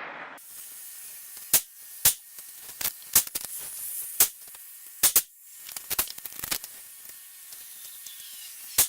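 A string of sharp clicks and knocks, about a dozen spread unevenly, from a rifle being handled and worked at the shooting bench between shots, over a faint steady hiss.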